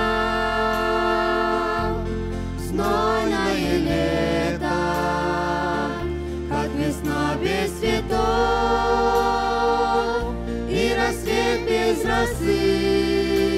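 Instrumental introduction to a slow Christian worship song: long held chords over a deep bass that moves to a new note every two seconds or so, with a wavering melody line here and there.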